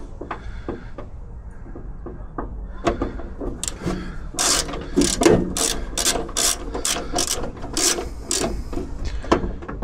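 Ratcheting screwdriver clicking in short runs as screws are turned, sparse at first and then about two clicks a second from roughly three seconds in.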